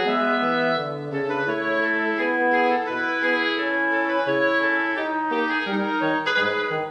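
Instrumental background music: slow, held notes, several sounding together and changing every second or so, in a wind- or organ-like timbre.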